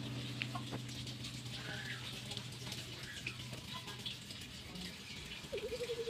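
A low sustained note of background music fades out about three-quarters of the way through, over faint scattered ticks and pattering with a few short high chirps.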